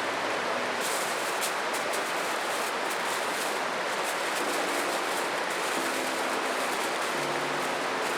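Steady hiss of water, with a few light ticks about a second in.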